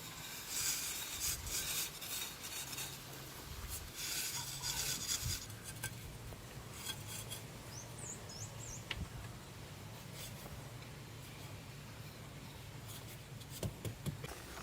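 Repeated rough scraping and rubbing, dense for about the first five seconds, then fainter and more scattered, with a few brief high chirps about eight seconds in.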